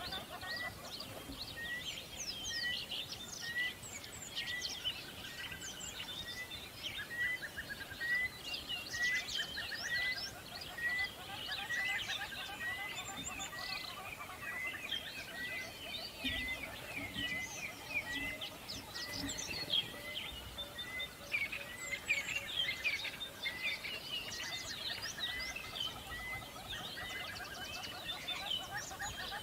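Many small birds chirping and twittering together. One bird repeats a short high note about three times every two seconds, and that note stops about two-thirds of the way through.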